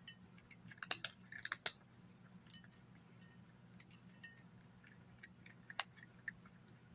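Cat eating dry chicken and egg kibble from a glass plate: irregular soft crunching clicks as it bites and chews, with pieces clicking against the glass. The clicks bunch up about a second in, with one sharp click near six seconds.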